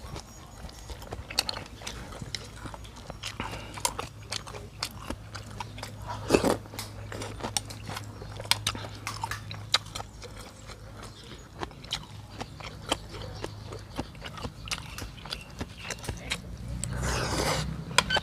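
Close-up eating sounds from a person eating noodle soup: chewing and biting with many small sharp clicks throughout. There are two longer noisy stretches, a brief one about six seconds in and a longer one of about a second near the end.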